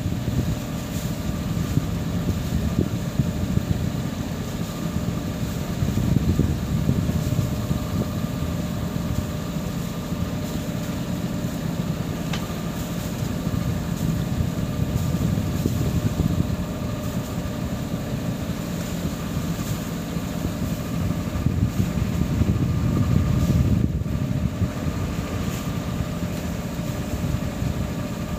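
Wind buffeting the microphone aboard a sailboat under way: a steady low rumble that swells and eases every few seconds, with a faint steady hum underneath.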